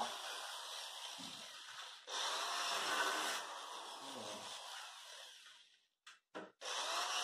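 Corded electric drill fitted with a 13 mm socket, running as it drives the bolts of a sewing machine stand; it gets louder about two seconds in and stops just before six seconds. After two brief bursts it runs again near the end.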